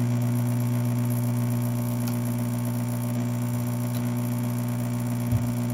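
Hot air rework station handpiece blowing, its fan giving a steady whir and hum with a hiss of air, heating the soldered metal shield on a phone logic board.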